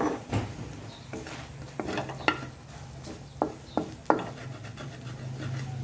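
Wooden spatula stirring scrambled eggs in a metal wok, scraping and knocking against the pan several times, with a light sizzle underneath.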